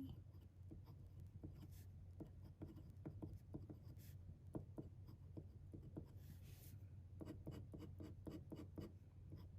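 Faint scratching and tapping of a pen nib on paper in many short strokes, as ink is written out, over a low steady hum.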